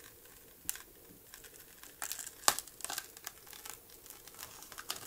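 Cracked glass back panel of a Samsung Galaxy Note 5 being peeled off its adhesive: a run of small crackles and clicks as the glue lets go, thickest and loudest about two and a half seconds in.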